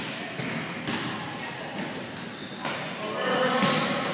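A volleyball being hit in a rally: a sharp slap about a second in and another near the end, each ringing briefly in the gym. Players' voices call out near the end.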